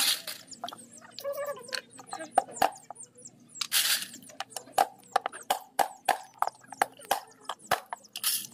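Horn snail shells clicking and knocking against each other and the bowls as they are handled in water, in a run of short sharp clicks that come faster in the second half, with a brief splash of water about four seconds in.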